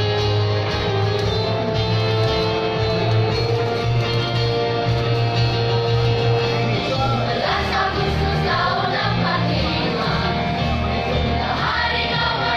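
Children's choir singing over an instrumental accompaniment: long held notes at first, then quicker, livelier phrases from about seven seconds in.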